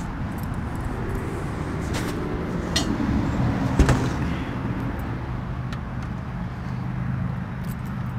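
A vehicle engine idling steadily, with a few knocks and clatters of objects being handled in a pickup bed; the sharpest knock comes about four seconds in.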